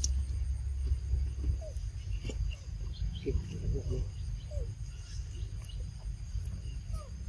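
Macaques giving short, rising squeaks, a flurry of them about three to four seconds in and a couple more near the end, over a steady high insect drone and a low rumble.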